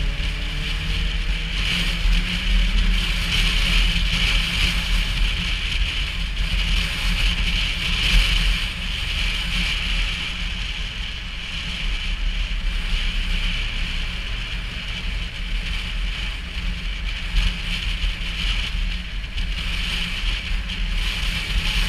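Motorcycle engine running while riding through traffic, with wind rushing over the bike-mounted microphone as a steady rumble and hiss. The engine note rises in the first second or two as the bike picks up speed, then settles into an even drone.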